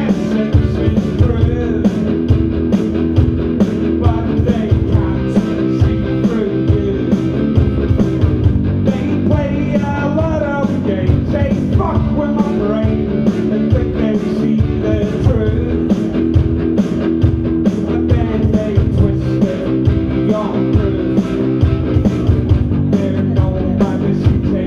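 Live rock band playing: a singer over electric guitars and a steady drumbeat.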